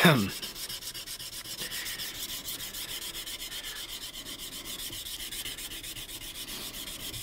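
Fresh wet/dry sandpaper on a 3D-printed sanding stick rasping along a steel knife blade in short, quick back-and-forth strokes with an even rhythm. A brief louder noise comes right at the start.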